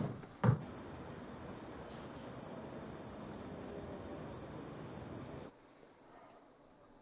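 Crickets chirping steadily in a night chorus, with one last beat of music just at the start. The chirping cuts off suddenly about five and a half seconds in, leaving faint room tone.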